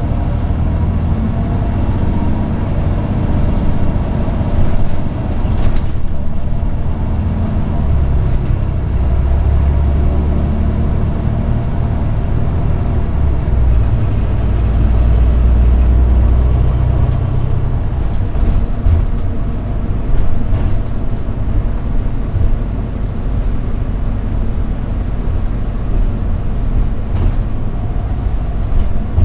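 Cummins ISX12 inline-six diesel engine of a commuter coach pulling away from low speed and accelerating hard, then easing off about halfway through and running steadily at cruising speed, with road noise underneath. A few knocks are heard along the way.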